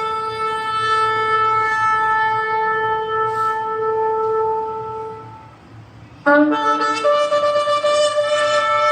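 A long, steady horn blast, trumpet- or shofar-like, that fades out about six seconds in; a second horn blast at a different pitch then starts abruptly.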